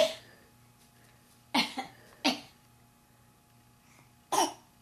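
A young child's fake coughs, imitating an adult's cough: three short coughs, two close together and one near the end.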